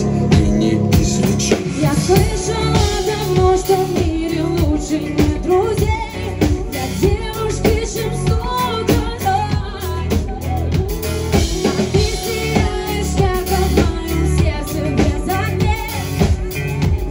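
Woman singing live over pop music with a steady drum beat.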